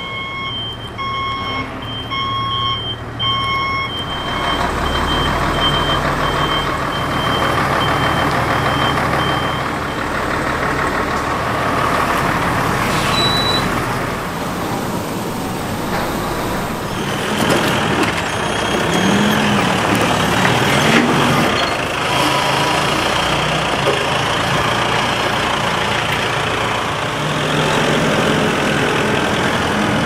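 A container truck's back-up alarm beeps about once a second for the first few seconds over its running engine. After that the truck's engine runs on steadily as it manoeuvres and drives off.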